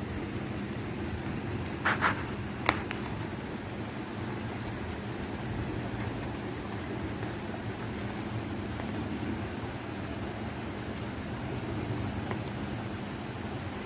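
Steady rain falling on wet pavement, a constant hiss of drops, with a couple of short sharp taps about two seconds in.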